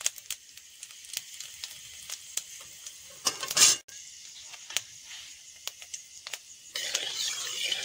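Panch phoron seeds frying in hot mustard oil in a metal kadai: a steady sizzle with many scattered crackling pops, stirred with a metal spatula. A louder burst comes about three and a half seconds in, and the sizzling and stirring grow louder near the end.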